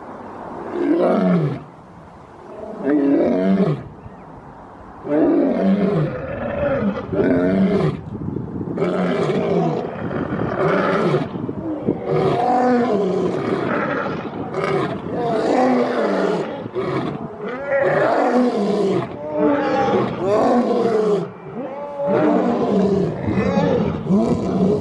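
Big cat roaring and growling in repeated calls about a second long, a few separate calls at first, then almost without a break from about five seconds in.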